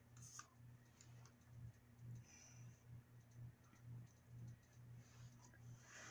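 Near silence: a few faint clicks of small plastic toy pieces being handled, over a low steady hum.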